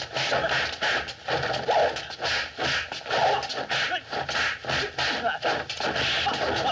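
Rapid kung fu film fight sound effects: strikes and swishes of fists and a wooden staff, about three or four a second, with the fighters' shouts and grunts.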